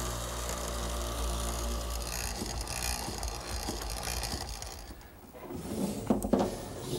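Benchtop hollow-chisel mortiser running, its half-inch chisel and drill bit plunging into a pine table leg to cut a mortise. The machine sound stops about five seconds in, followed by a few wooden knocks.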